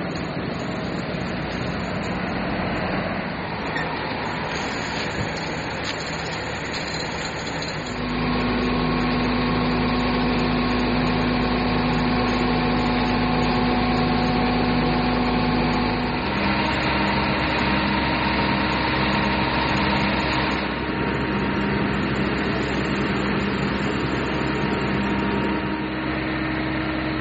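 Vehicle engines running at idle over a steady rushing noise, with a constant hum. The engine sound changes abruptly twice, about eight seconds in and again about sixteen seconds in.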